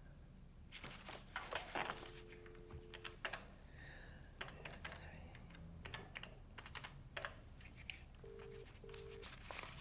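Corded desk telephone being used to make a call: handset handling clicks, a steady dial tone for about a second, a run of small keypad button clicks as the number is dialled, then near the end two short beeps of the double ringback tone as the line rings out.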